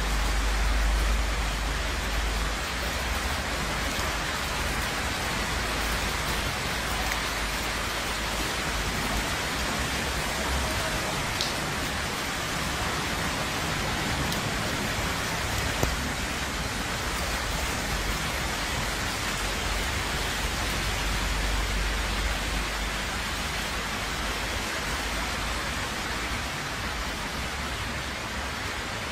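Steady rain falling on a wet city street and rooftops, a constant hiss of water, with a low rumble in the first couple of seconds.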